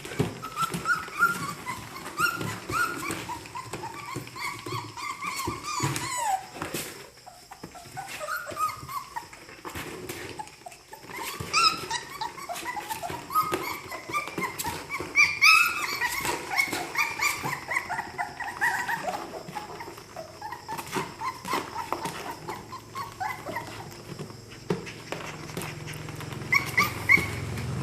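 A litter of three-week-old puppies whimpering and squealing: many short, high calls overlapping, thinning out for a few seconds partway through.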